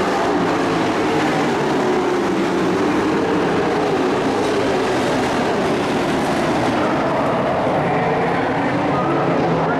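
Engines of a pack of dirt-track race trucks running at speed around the oval: a loud, steady drone from the whole field.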